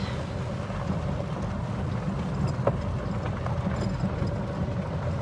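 A vehicle driving along, heard from on board: a steady low rumble with a faint steady whine above it and a few small clicks and rattles.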